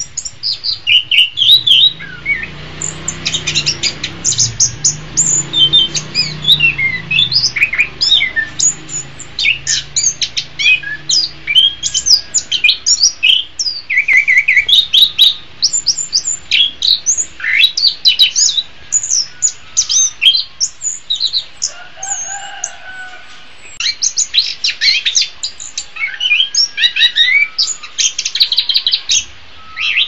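Chestnut-capped thrush (anis kembang) singing: a fast, varied, almost unbroken stream of high chirps, whistled notes and short trills, with a brief pause about 23 seconds in.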